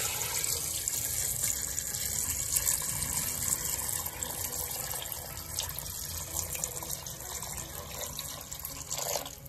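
A litre of water poured in a steady stream from a jug into a metal cooking pot of seared mutton pieces, splashing as the pot fills. The pouring stops shortly before the end.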